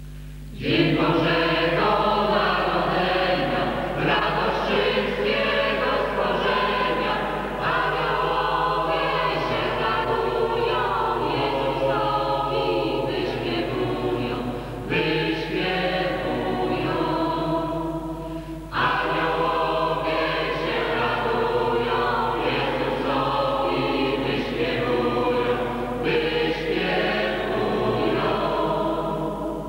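Mixed parish choir of men, women and children singing a Polish Christmas carol (kolęda), coming in about half a second in, with two short breaks between phrases around the middle.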